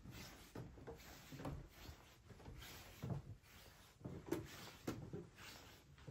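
A person's slow footsteps: soft, uneven thumps about one or two a second, the loudest about four seconds in, with the rustle of a phone being handled.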